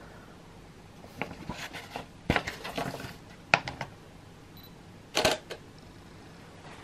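Scattered light clicks from handling a Canon 90D DSLR on a tripod, then the camera's shutter firing once a little after five seconds in, a quick cluster of clicks that is the loudest thing heard.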